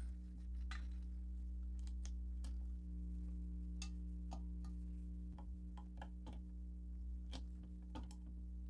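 Scattered light clicks and ticks as fabric is handled and drawn out from under a sewing machine's presser foot, over a steady low hum. The sewing machine is not stitching.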